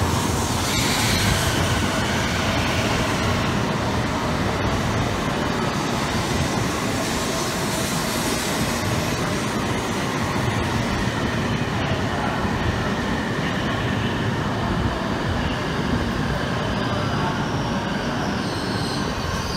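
E7 series Shinkansen train pulling into the platform, slowing as it comes in: a steady rolling and running noise from the passing cars.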